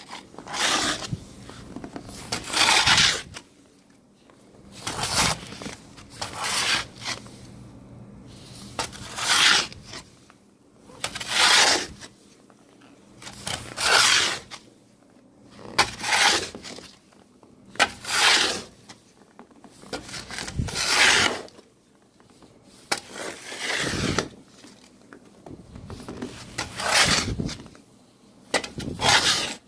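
Plastic-bladed snow shovel scraping across a snow-covered balcony floor, pushing snow in repeated strokes about every two seconds.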